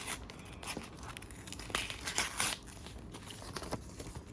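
Packaging being unwrapped by hand: irregular crinkling and tearing, louder for a moment about halfway through.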